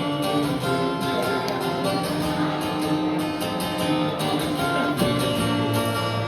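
Acoustic guitar strummed in an instrumental passage, with no singing.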